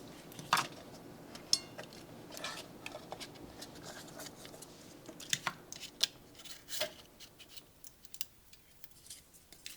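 Paper-lined chocolate crackles being set out on a plate: faint paper rustling with scattered light taps and ticks, thinning out near the end.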